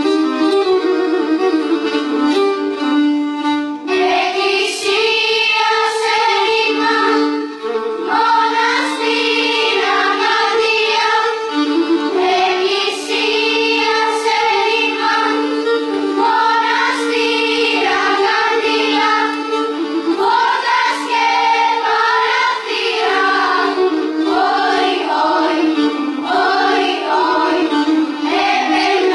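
A children's choir singing a song together over bowed string accompaniment. The strings play alone at first, and the voices come in about four seconds in.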